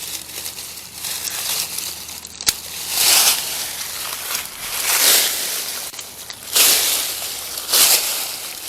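Leafy sweet potato vines rustling and crunching as they are pulled and cut back. There is a single sharp click about two and a half seconds in, then four loud swishes at roughly even intervals.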